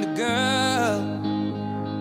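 Background music: a slow love ballad, a voice singing a held, bending phrase over soft guitar accompaniment.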